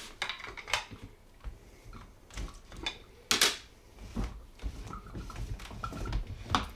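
Hard plastic reverse osmosis filter housings being handled and knocked on the counter: scattered clicks and knocks, the loudest about three and a half seconds in, with a few brief squeaks near the end as a housing is twisted under its bracket.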